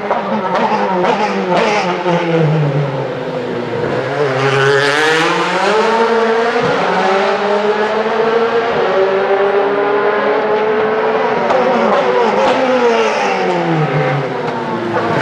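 DTM touring cars' V8 race engines running on track. Pitch falls as a car slows, climbs sharply about four seconds in as it accelerates, holds steady for several seconds, then drops again and rises once more near the end.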